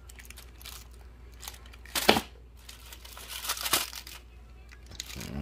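Clear plastic shrink-wrap on packs of firework tubes crinkling as they are handled, with a sharp crackle about two seconds in and a cluster of crinkles a little later.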